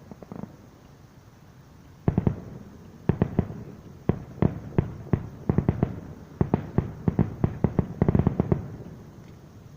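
Fireworks shells bursting in a rapid barrage of sharp bangs. They start about two seconds in, come thick and fast, with the densest cluster just before the end, then die away.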